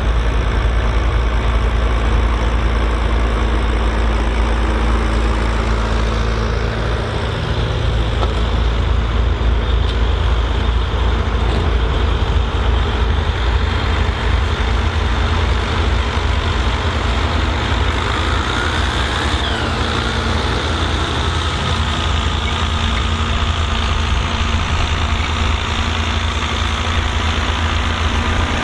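Volvo BM 2654 tractor's diesel engine running steadily, its note changing about seven seconds in. A faint whine rises and falls about two-thirds of the way through.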